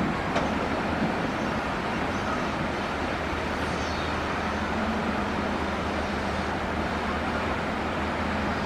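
Excavator's diesel engine running steadily while the machine works, with a low engine hum that firms up about three seconds in. There is one short click near the start.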